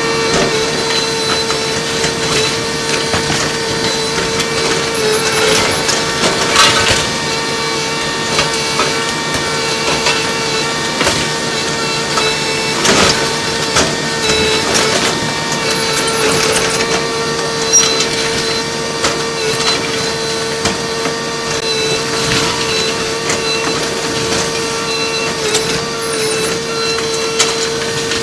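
Kobelco SK220LC Mark IV hydraulic excavator demolishing masonry, played back at four times speed: a steady high-pitched machine drone under frequent crunching and clattering of breaking wall and falling debris.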